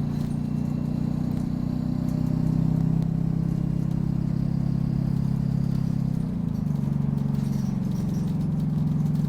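Optare Solo bus's diesel engine running under way, a steady low drone that dips briefly in pitch about six seconds in and then picks up again.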